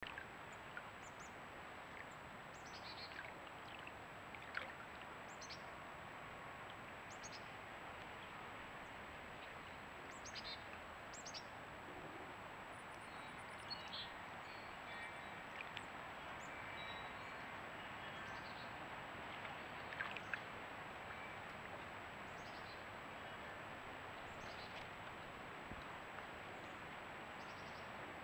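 Steady hiss of outdoor pond ambience picked up by a trail camera's microphone, with a thin constant high tone. Scattered short, faint high chirps come and go throughout, and there are a few brief soft clicks, the clearest about 4.5 seconds and 20 seconds in.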